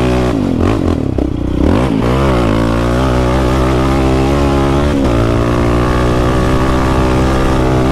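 Yamaha Raptor 700's single-cylinder four-stroke engine through an HMF full exhaust, heard from the rider's seat. The engine note dips and rises several times over the first two seconds as the throttle is worked, then holds at a steady pull, with a short dip about five seconds in.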